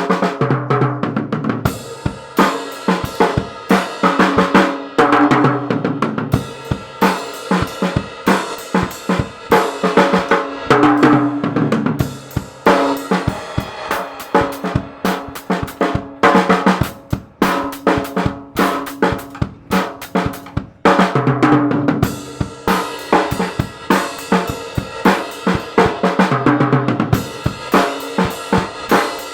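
Acoustic drum kit played steadily: bass drum, snare and cymbals keep a beat, with tom fills coming round every five seconds or so.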